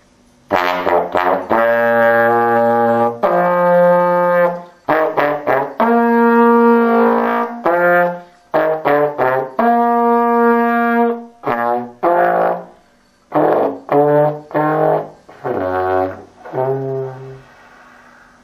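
Trombone playing a melody that mixes short, detached notes with longer held ones in a low register. The playing starts about half a second in and stops about a second before the end.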